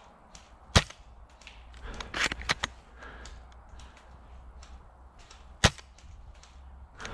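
Airsoft sniper rifle, a Novritsch SSG24 bolt-action, fired twice about five seconds apart, each a single sharp crack. Between the two shots comes a quick cluster of smaller clicks and clatters.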